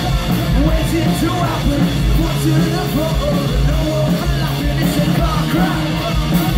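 Live rock band playing loudly, with electric guitars, heavy low-end pulses and singing, heard from the audience in the venue.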